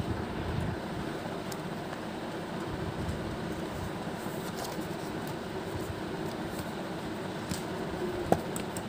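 Steady low background rumble, with a few faint clicks and one sharp tap near the end as a spiral notebook is handled and closed.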